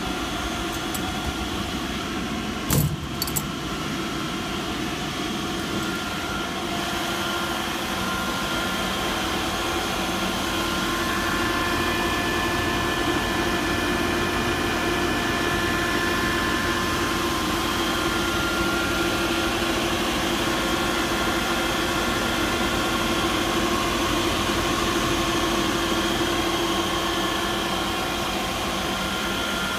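Adicomp WIND 5-500 rotary screw air compressor running steadily: a constant mechanical drone with several steady whining tones. A brief rattle sounds about three seconds in, and the machine gets somewhat louder after about ten seconds.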